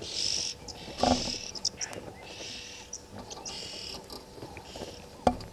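A vervet monkey handling the camera's metal mount right by the microphone, making two sharp knocks, about a second in and near the end. A high hissing buzz comes and goes several times between them.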